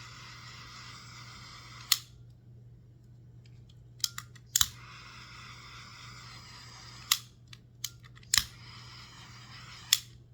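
Handheld butane cooking torch hissing in three bursts of two to three seconds as it scorches wood. Each burst is started and cut off with a sharp click of the torch's trigger, over a steady low hum.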